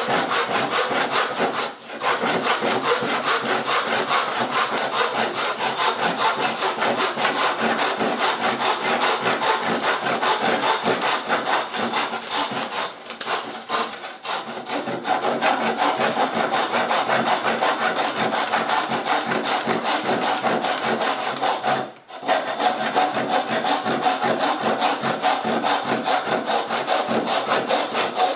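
Handsaw making a rip cut along the grain of a wooden board, in continuous back-and-forth rasping strokes. There are three brief pauses: about 2 seconds in, around 13 seconds, and about 22 seconds in.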